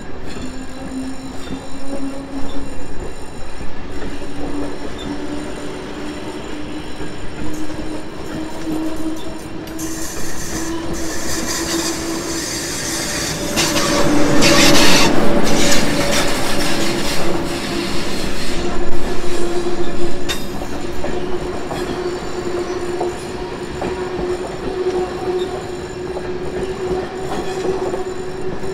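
SJ X2000 electric train pulling out and gathering speed. Its motor hum slowly rises in pitch, and the wheels squeal loudly and clack over the points for several seconds about halfway through.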